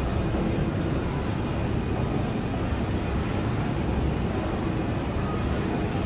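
Steady low rumble of outdoor urban ambience, with no single event standing out.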